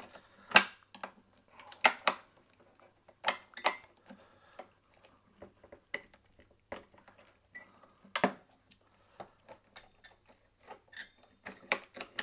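Irregular sharp metal clicks and knocks as a screwdriver pries at a hard disk's voice-coil magnet plate, held in place only by its strong magnet. A few louder knocks come in the first four seconds and another about eight seconds in.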